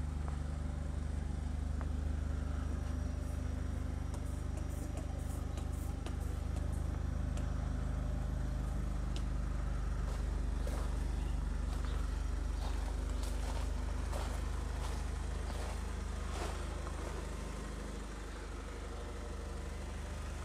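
Mitsubishi Eclipse GS-T's turbocharged 2.0-litre four-cylinder engine idling steadily, a low even hum, with scattered light clicks over it.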